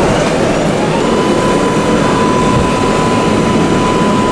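New York City subway train running, a loud steady rumble of wheels and car noise. A steady high whine comes in about a second in and holds.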